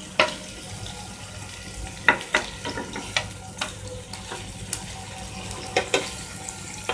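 Chicken burger patties sizzling in oil on a nonstick grill pan: a steady hiss broken by scattered sharp crackles and clicks, while a spatula turns the patties.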